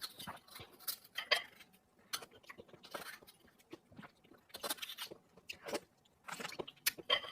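Close-miked eating sounds of a person chewing sea urchin: irregular wet clicks and smacks of the mouth at work.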